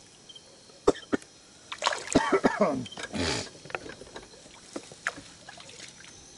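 Clicks and knocks of fishing gear being handled close to the microphone, with a short throaty vocal sound about two seconds in and a brief rush of noise just after it. Crickets chirp faintly behind.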